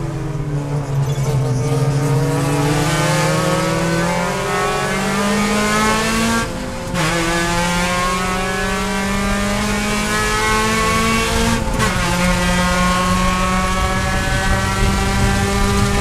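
Mazda Miata race car's four-cylinder engine accelerating hard out of a corner, heard from inside the cockpit, its pitch climbing steadily. Two quick upshifts, about six and a half and eleven and a half seconds in, each a brief break in the sound and a drop in pitch before it climbs again.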